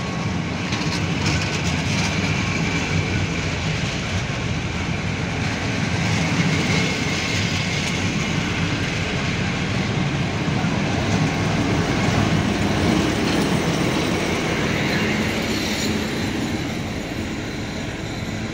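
Passenger coaches of a train rolling past close by, their wheels rumbling and clacking on the rails, with a faint higher wheel squeal over the top. The noise eases off near the end as the SU46 diesel locomotive at the rear goes by.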